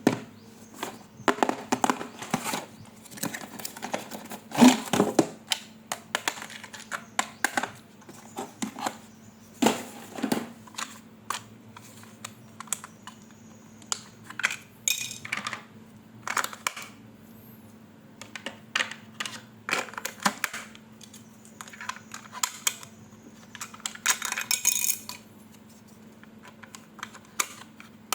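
Irregular clicks, taps and clatter of small hard objects being handled, over a faint steady hum.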